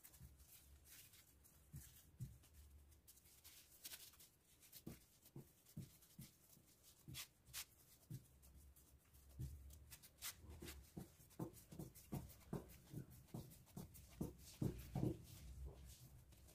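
Hands gathering dough scraps and pressing them into a ball on a granite countertop: faint soft taps and rustles, then a run of quick dull thuds in the second half as the dough is pressed together.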